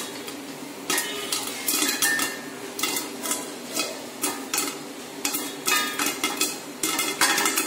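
Popcorn kernels popping in hot oil inside a covered kadai: irregular sharp pops, a few each second, with kernels knocking against the steel lid and pan, over a steady frying sizzle.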